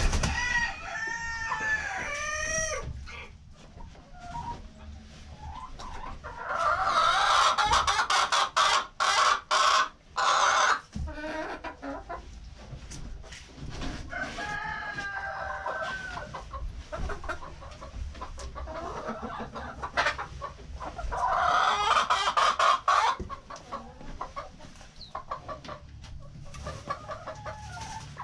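A flock of chickens clucking and calling. A quick run of short rising-and-falling calls opens, and two loud stretches of calling a few seconds long come about a third of the way in and again about three-quarters through.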